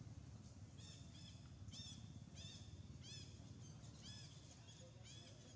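A series of about eight short, high-pitched animal calls, each rising and falling in pitch, repeated roughly every half second to a second, faint over a low background hum.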